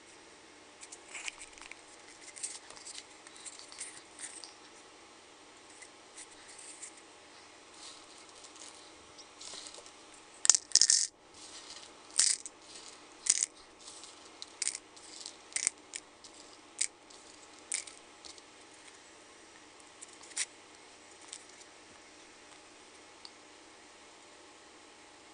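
Dry black beans dropping and rattling into a plastic cup: a run of sharp, irregular clicks, loudest in a burst about ten seconds in, thinning out near the end.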